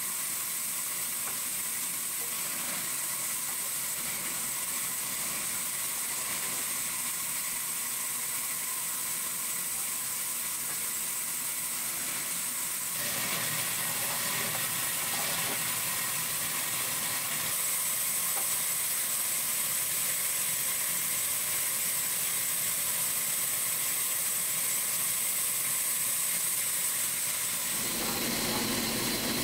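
Steady hissing noise of workshop machinery, growing louder and fuller about 13 seconds in.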